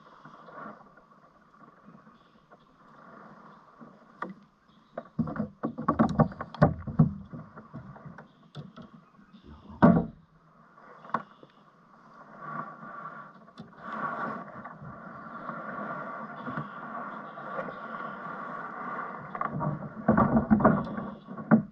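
Knocks and thumps of a kayak paddle and fishing gear against the kayak, coming in bunches several seconds apart, with a soft steady hiss between them.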